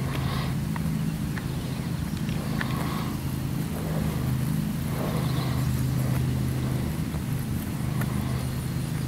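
A motor running steadily at idle: an even, low engine drone that does not change.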